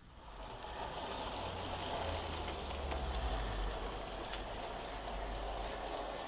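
N gauge model tank locomotive running along the track hauling tank wagons: a steady whirring rumble from its motor and wheels on the rails, with scattered light clicks.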